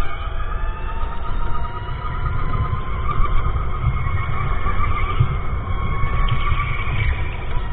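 Electric go-kart motor whining, its pitch sliding up and down with speed, over a dense low rumble from the kart.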